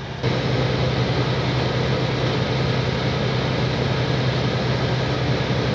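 Steady drone of a Western Star semi truck's engine and road noise, heard from inside the cab while cruising at highway speed.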